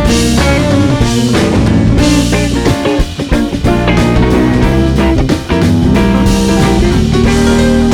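Live rock band playing an instrumental passage: electric guitar over bass and drum kit, with no singing.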